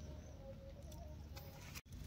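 Faint outdoor ambience: a low background rumble with distant bird calls, a few short faint tones. The sound drops out for an instant near the end.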